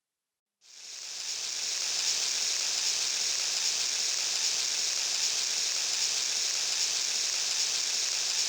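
Yamaha YPT-300 Portatone keyboard sound effect: a steady, pitchless hiss that swells in about half a second in and then holds level.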